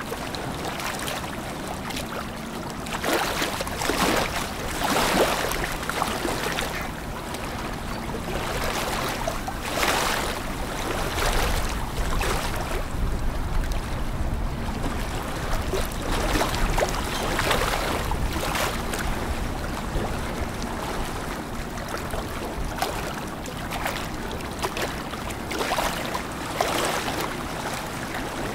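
Low steady hum of boat engines under wind and water noise that swells every couple of seconds; a deeper rumble joins around the middle.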